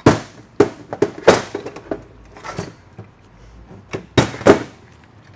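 Steel clutch drum and clutch plates of a 48RE automatic transmission clanking against each other and onto a steel workbench as the third-gear clutch pack is taken apart. Several sharp metallic knocks with a short ring, the loudest right at the start and a pair about four seconds in.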